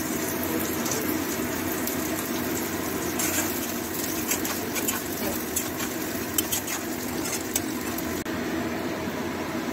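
Chopped onions and green capsicum sizzling steadily in oil in a steel wok, stirred with a metal spatula that scrapes and clinks against the pan now and then.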